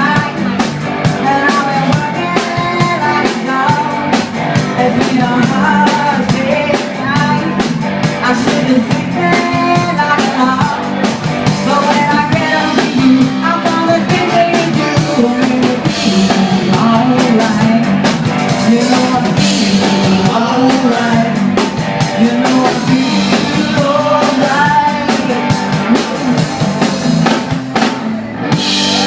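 Live rock band playing with electric guitar and drum kit, loud and continuous, with a voice singing over it.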